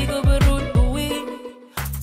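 Background music: a song with sung vocals over a beat of deep bass drum hits that drop in pitch. The music cuts out briefly near the end, then comes back in.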